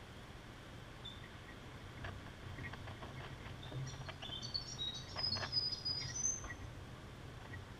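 Grey fantails at the nest: a quick run of thin, very high chirps at shifting pitch, starting about four seconds in and lasting about two and a half seconds, among soft clicks.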